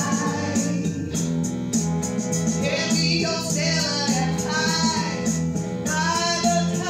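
A woman singing a song into a microphone over a recorded band accompaniment with a steady beat.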